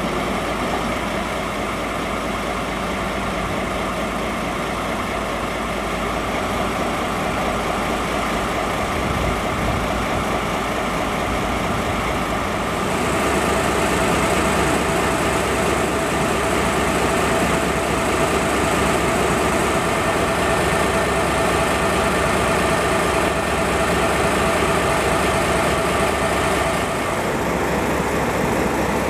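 JR DE10 diesel-hydraulic locomotive idling at a standstill, its V12 diesel engine running steadily. About thirteen seconds in the sound grows a little louder and brighter, with a steady whine added.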